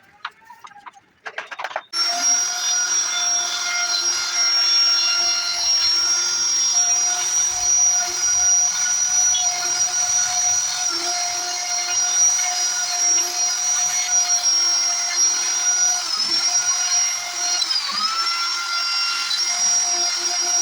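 Electric wood router running at high speed: a steady high-pitched whine that starts about two seconds in, its pitch sagging briefly twice near the end.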